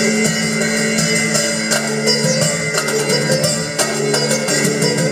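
A live band playing: a sitar is plucked over a held drone, with drums keeping time.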